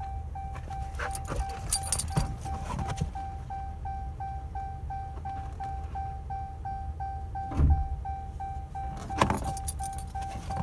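A Ram pickup's warning chime pinging in a rapid, even repeat over a low steady rumble in the cab, with a few knocks and thumps of movement inside the cab.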